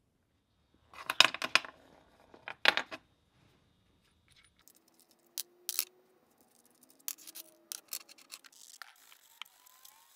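Small steel mallet-head parts being handled on a steel bench plate: two loud clusters of sharp metal knocks in the first few seconds, then lighter clinks, faint squeaks and brief scraping near the end.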